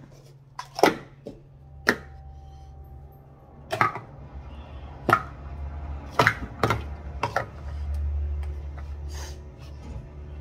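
Plastic Speed Stacks sport-stacking cups clacking against each other and the mat as they are stacked up and down by hand, in sharp, irregular clacks. A low hum runs underneath and swells in the second half.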